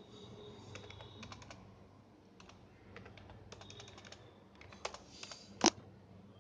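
Computer keyboard being typed on in short scattered runs of key presses, with one sharper, louder key strike near the end.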